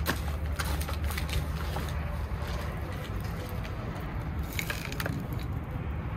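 Gritty granular bonsai substrate being handled and dropped into a wooden training box around a tree's roots, giving many small crackling clicks. A steady low rumble runs underneath.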